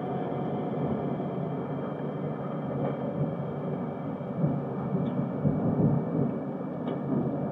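Steady low rumble of a car driving on a paved road, tyre and engine noise heard from inside the cabin.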